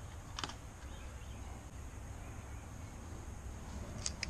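Faint handling sounds: a light click about half a second in, then metal pliers clicking against the concrete floor as they are picked up near the end, over a steady low background rumble.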